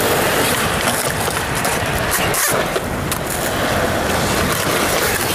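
Skateboard wheels rolling steadily over smooth concrete, with wind buffeting the microphone.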